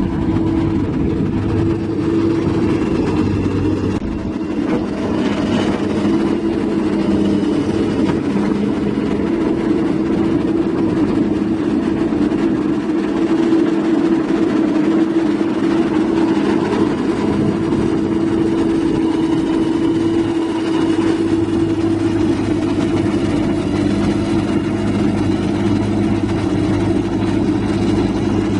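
Komatsu hydraulic excavator's diesel engine idling steadily.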